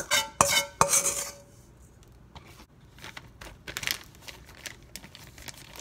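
A measuring cup knocks three times against a stainless steel mixing bowl in the first second, the bowl ringing after each knock. Then a plastic zipper bag crinkles faintly as it is handled and pressed shut.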